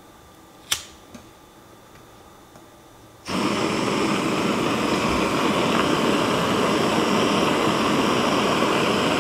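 A canister backpacking stove's burner lit and running with a steady, even rush of gas flame under a heat-exchanger pot, starting abruptly a little over three seconds in. A single sharp click sounds shortly before.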